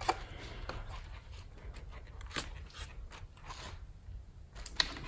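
Faint handling noise from the plastic truck grill: a few scattered light clicks and taps over a low steady rumble.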